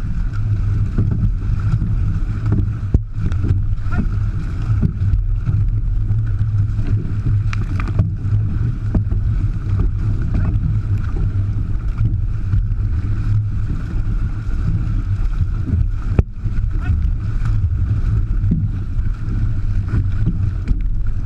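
Water rushing and splashing along the hull of a six-person outrigger canoe under way, with a heavy low rumble from wind and water on the hull-mounted microphone and scattered short splashes from the paddle strokes.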